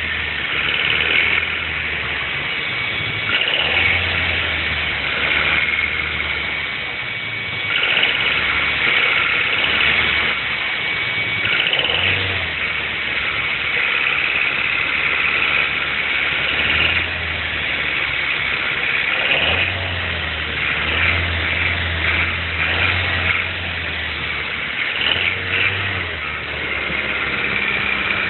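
A 2010 Mazda 3's 1.6-litre four-cylinder engine running with a knocking rattle, the engine noise its owner is trying to track down. Its level and pitch rise and fall every few seconds.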